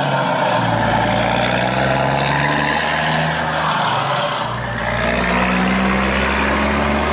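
Truck engine running steadily, dipping briefly about four seconds in and then picking up again.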